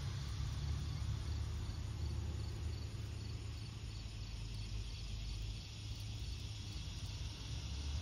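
Outdoor background: a steady low rumble, with a faint insect chirping in an even, repeating pulse high above it.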